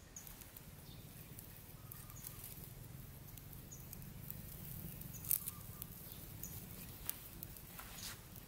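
Small open wood fire crackling, with scattered pops and one sharp pop about five seconds in.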